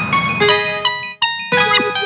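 Samsung SGH-X610 polyphonic ringtone playing: a synthesized melody of short pitched notes. About a second in the sound drops out briefly, and a phrase with quick sliding notes follows.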